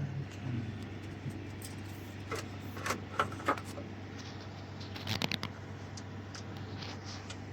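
Scattered light clicks and clinks of small hard objects being handled, in two short clusters, over a steady low hum.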